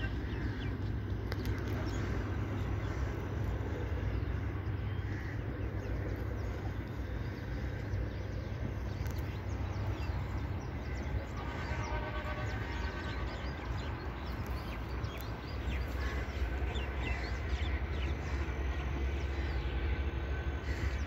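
Birds chirping and calling many times over a steady low rumble.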